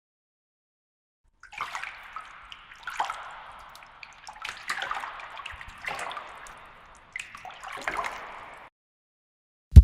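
Abstract sound effect: about five short, watery-sounding noise swells with crackles, one roughly every second and a half. Right at the end a much louder low rumble starts abruptly.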